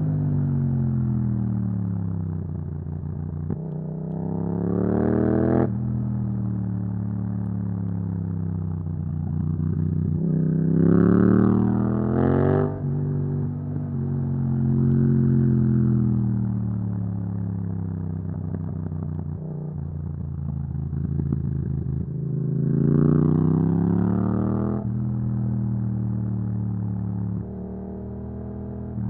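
Yamaha MT-07 parallel-twin engine through an Akrapovic exhaust, heard from the rider's seat: the revs climb sharply in three bursts of acceleration, each cut off by a sudden drop as the gear changes or the throttle closes, with steadier cruising between.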